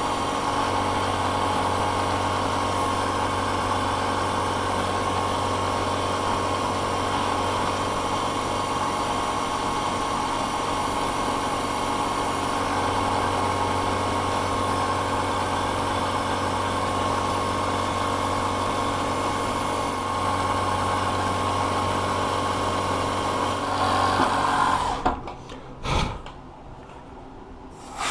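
Manual vertical milling machine running an end mill through finishing cuts on a brass hand wheel on a rotary table: a steady mechanical hum with a whining tone that stops about 25 seconds in. A short knock follows, and near the end a loud hiss starts as an air line is brought over the part.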